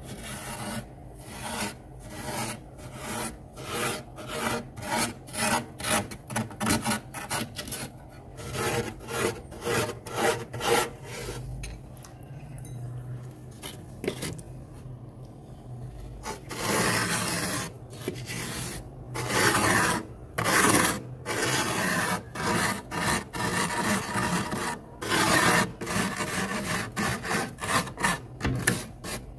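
Fingers scraping and rubbing the thick frost on the walls of a freezer compartment: a run of short, raspy scraping strokes, about one or two a second, with longer, closer-packed scraping a little past the middle.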